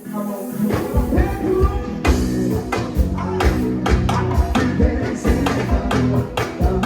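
Live band music: drums and percussion keep a steady beat under bass and other instruments, with the low end coming in under a second in.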